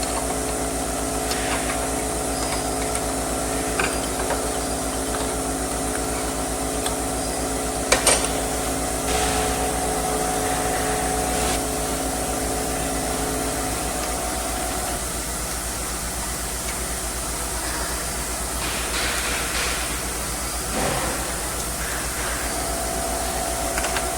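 Small gasoline engine running steadily, its pitch shifting a little about halfway through, with a sharp click about a third of the way in.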